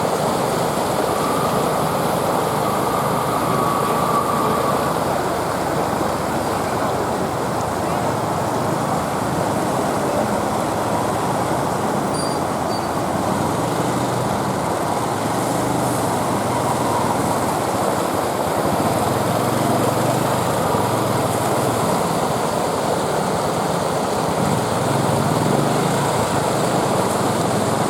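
Motorcycle engines running as two-wheelers ride through flood water, mixed into a steady traffic din with people's voices in the background.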